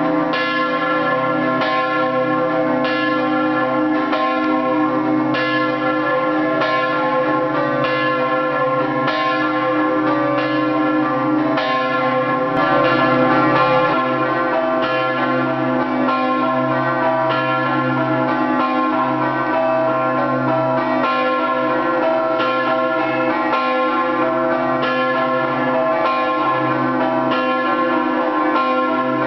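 A concert of three church bells in C, cast by De Poli of Udine (the small bell in 1924, the middle and large bells in 1928), played as a Friulian scampanottata. The bells are struck in a quick, regular rhythmic pattern, and their notes ring on and overlap.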